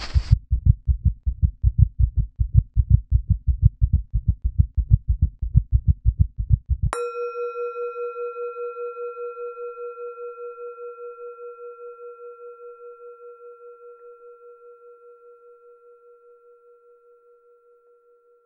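Rapid low thumping pulses, about seven a second, stop abruptly about seven seconds in. A single struck, bell-like metal tone then rings out, its level wavering as it slowly fades away.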